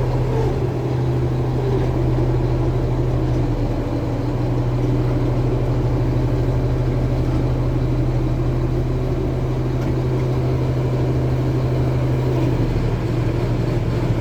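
MAN diesel engine of a K-700 tractor running steadily with a deep, even hum.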